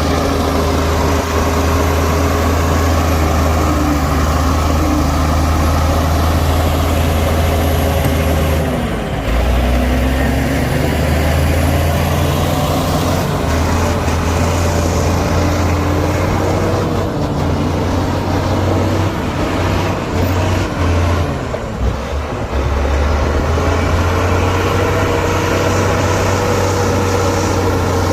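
Heavy diesel earthmoving machinery running under load, with its engine note rising and falling, and brief drops in the engine sound about a third of the way in and again around three quarters of the way through.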